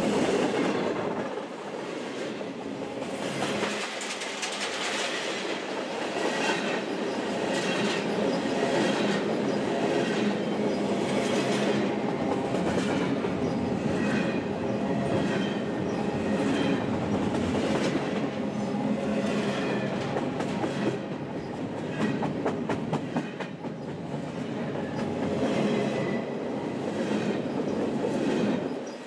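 Double-stack container train's steel-wheeled well cars rolling past: a steady rumble with repeated clickety-clack as the wheel sets cross rail joints.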